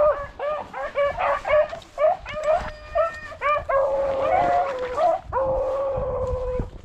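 Rabbit hounds giving tongue on a running rabbit's track: a string of quick, choppy barks and yelps, then long drawn-out howls in the second half.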